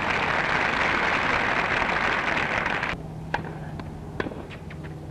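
Crowd of tennis spectators clapping, cut off abruptly about three seconds in. Scattered sharp clicks and a steady low hum follow.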